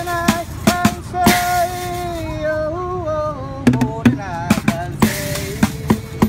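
A man singing over his own drumming on a homemade kit of plastic buckets and a cymbal. The drum hits thin out while he holds a long sung note about a second in, then pick up again under a quickly wavering vocal line around four seconds in.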